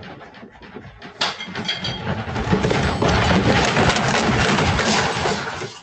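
A house shaking in a magnitude 7.0 earthquake, heard through a Ring indoor camera's microphone: a sharp knock about a second in, then a loud rumble and dense rattling of the room and its contents that builds and holds.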